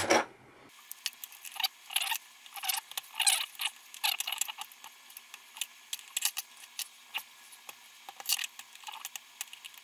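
Fingers peeling and flexing the thin laminated plastic layers of a credit-card-style security token: a run of irregular small crackles and clicks, with a louder crackle right at the start.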